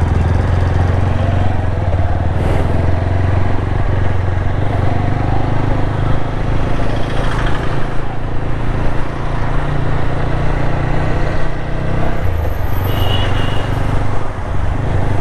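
Motorcycle engine running steadily under the rider, with a brief dip about twelve seconds in.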